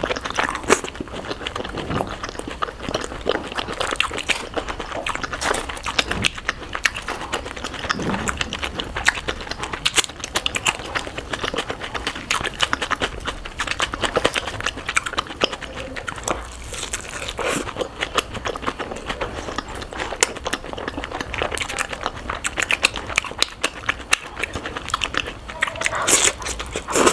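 Close-miked mukbang eating sounds played at double speed: rapid crunching bites and chewing, a dense run of crackles and clicks with no break.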